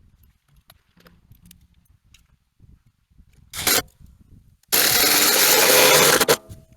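Power tool working wood: a short burst, then about a second and a half of loud, steady cutting noise that stops suddenly, after light taps and knocks.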